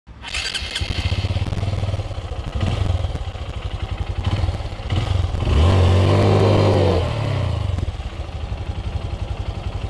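Honda CRF150L single-cylinder four-stroke dirt bike engine being revved in uneven bursts, rising to a louder, higher held rev about halfway through, then dropping back. The rear tyre is spinning in loose dirt and digging itself into a hole.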